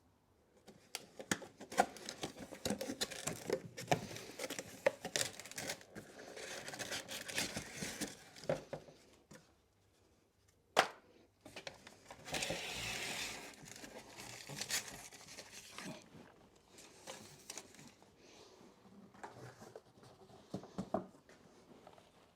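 Irregular crinkling, rustling and tearing sounds of material being handled, with many small clicks, a sharper click about halfway through and a longer rasping tear just after it.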